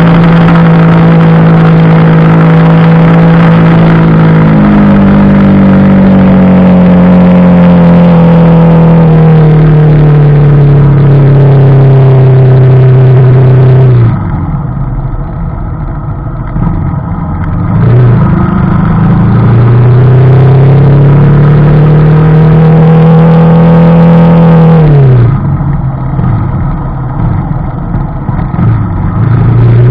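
Yamaha Vixion Advance's 150 cc single-cylinder engine running loud through a B-Pro5 Alpha Edition aftermarket exhaust while riding at speed. Its note slides slowly in pitch under throttle. About halfway and again near the end it backs off, quieter and lower for a few seconds, then climbs again in a steady rising note as the bike accelerates.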